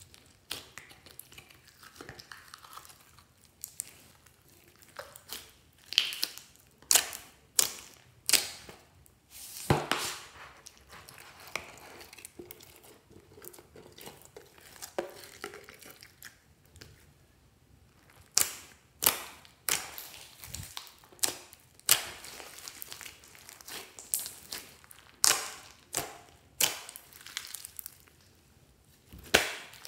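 Hands squishing, pressing and stretching a large mass of clear slime mixed with orange slime, beads and glitter. It gives irregular sticky crackles and pops, some sharp and loud and coming in clusters, with quieter squelching between.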